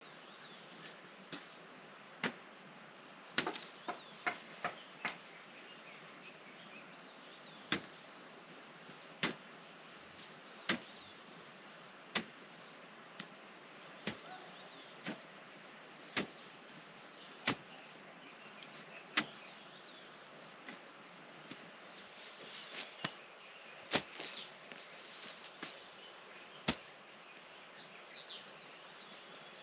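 Hand hoe chopping into soil as a field is dug by hand: short dull strikes, roughly one every second and a half, with a steady high insect drone behind them.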